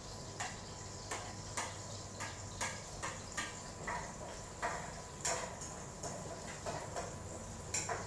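Cooking utensil tapping and scraping against a plate and a wok in a string of light, irregular clinks, one or two a second.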